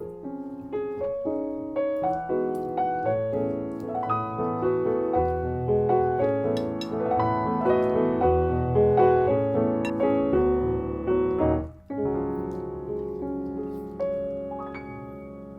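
Background piano music: a gentle melody of struck notes over chords. It breaks off for a moment about three-quarters of the way through, then goes on.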